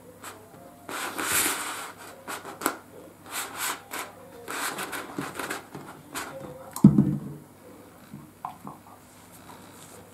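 A borzoi eating from a small food box, with chewing and mouth noises in several short bursts and a single dull thump about seven seconds in.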